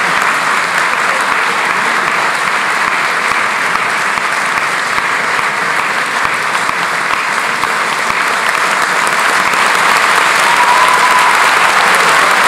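Audience applauding steadily, swelling a little louder near the end, when a faint held high note rises over the clapping.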